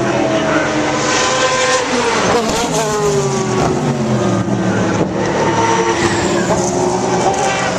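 Several racing car engines running hard at once as cars go by, their pitch sliding down and climbing again with the passes and gear changes.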